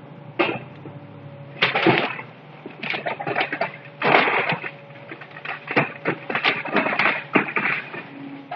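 Wooden house structure breaking apart during demolition: irregular cracking, splintering and crunching of wood and debris, coming in clusters about half a second to a second long, over a steady low hum.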